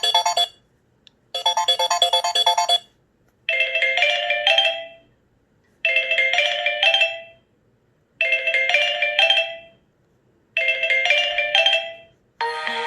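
Samsung Galaxy J7 Star ringtones playing. A fast chiming phrase plays once more. Then a different short melodic ringtone repeats four times with pauses of about a second between, and another ringtone starts near the end.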